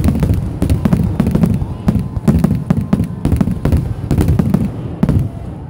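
Fireworks display: aerial shells and rockets going off in quick succession, a dense run of loud bangs and crackles over a low rumble, thinning out near the end.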